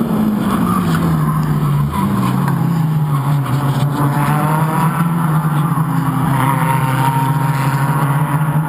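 Suzuki Swift race cars' engines running hard down the straight. The engine note drops in pitch about two seconds in, then holds steady.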